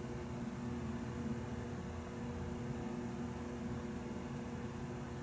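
Steady room tone: a fan running with an even hiss and a constant low hum.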